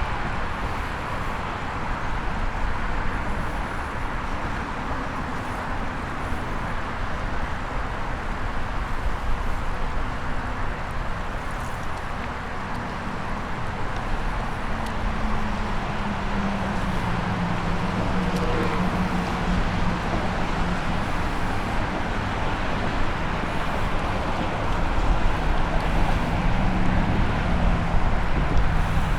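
Steady road traffic noise, with a low engine hum that drifts up and down in pitch from about halfway through.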